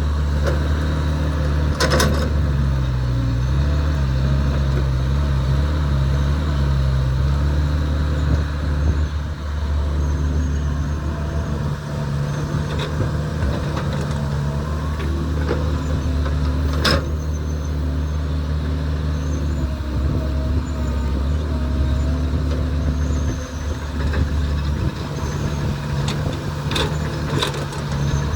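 Heavy earthmoving machinery's diesel engine running steadily under work, its note shifting now and then. A few short sharp knocks come through: about two seconds in, around the middle, and near the end.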